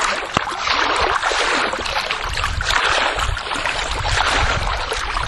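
Water in a swimming pool sloshing and splashing as a person wades through it, with surges at each step.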